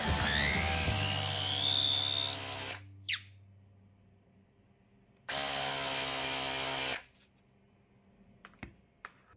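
Enusic cordless mini air compressor pump running unloaded, its motor whine rising in pitch before cutting off a little under three seconds in. It runs again briefly in the middle, steady, for about a second and a half, and a few light clicks follow near the end.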